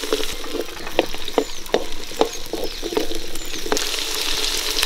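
Whole shallots and garlic cloves frying in hot oil in an aluminium pot: a steady sizzle with many short, irregular crackles and pops.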